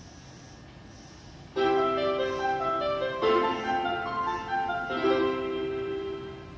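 Toei Asakusa Line station departure melody for the southbound platform: a short piano-like chime tune played in three phrases, starting about a second and a half in. It signals that the train's doors are about to close for departure.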